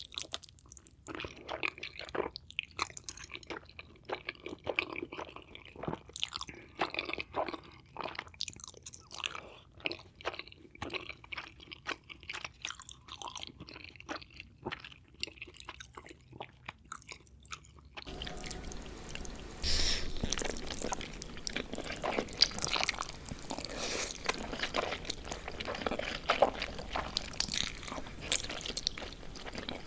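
Close-miked chewing of Korean hot noodles: irregular wet mouth clicks and smacks. About 18 s in, the background hiss rises abruptly and the chewing carries on.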